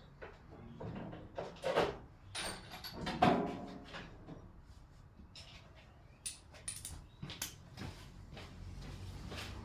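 Irregular clicks, knocks and scrapes of hand tools and parts being handled while the fan and air-intake snorkel are unfastened with a 10 mm socket and a Phillips screwdriver. The louder knocks come in a cluster a second or two in and again about six to seven seconds in.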